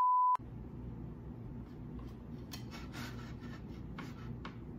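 A steady high test-tone beep, the kind played under broadcast colour bars, cuts off sharply just after the start. A steady low room hum follows, with a few faint clicks and ticks.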